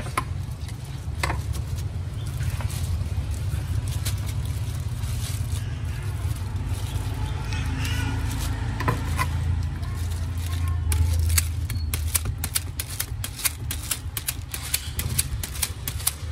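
Knife slicing firm green mangoes by hand: a few scattered cuts, then from about two-thirds of the way through a quick run of sharp clicks, about four a second. A steady low rumble runs underneath.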